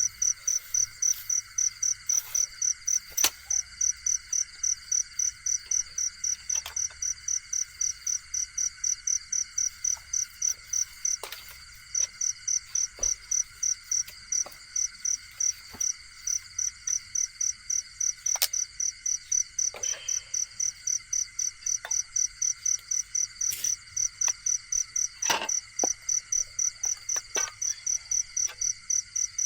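A cricket chirping in a steady rhythm, about three chirps a second with a short pause near the middle, over a continuous drone of other insects. A few faint sharp clicks sound now and then.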